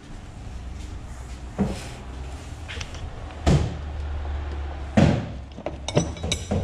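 A few dull knocks, then metal combination wrenches clinking and ringing against each other near the end as one is lifted out of a wrench rack.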